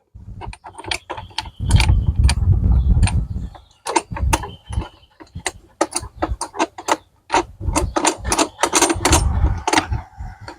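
Ratchet wrench clicking in quick runs as the fasteners on a lawn tractor's air filter cover are backed off, with handling knocks and rattles between the runs.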